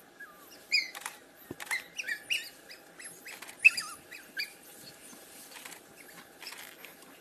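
African wild dogs twittering and squeaking: a flurry of short, high, bird-like chirps, some bending in pitch, bunched in the first four and a half seconds and thinning out after.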